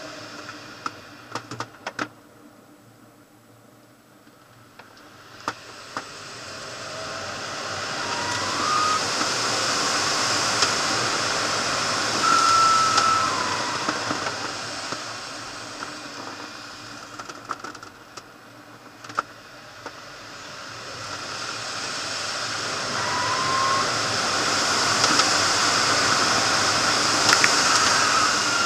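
Air rushing over a glider's canopy in flight, swelling loud as the glider gathers speed and fading as it slows, twice over, through an aerobatic sequence. A few short whistling tones and sharp clicks sit on top of it.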